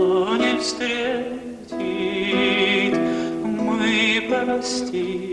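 A male voice singing a slow Russian gypsy romance, holding notes with vibrato, over plucked guitar accompaniment.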